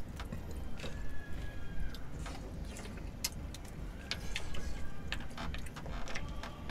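Chopsticks and spoons clicking against bowls and a pot, with scattered small eating noises, over a low steady hum.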